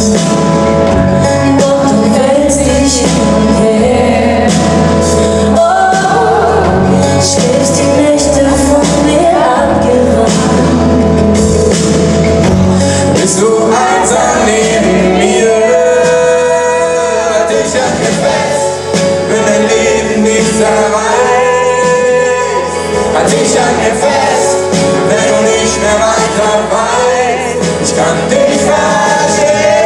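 Pop-rock band playing live with singing, heard from the crowd in a large arena. The heavy bass and drums drop back about thirteen seconds in, leaving a quieter sung passage, and come back in near the end.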